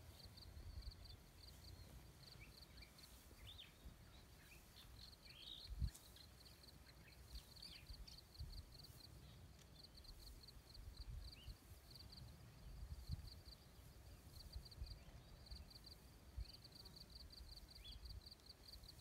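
Near silence: faint outdoor ambience with a high chirring in rapid pulses, a few short chirps and a low rumble. There is one soft thump about six seconds in.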